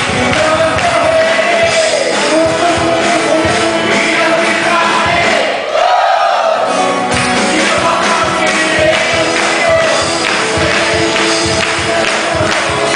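Live worship music with singing, a band and a congregation singing along, with a brief drop-out of the bass and drums about halfway through.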